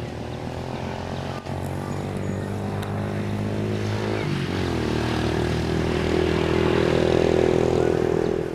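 A motor engine running steadily. Its pitch shifts about four seconds in, it grows louder, and it cuts off abruptly at the end.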